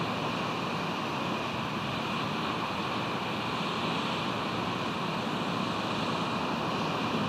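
Steady, unchanging rush of ocean surf and wind.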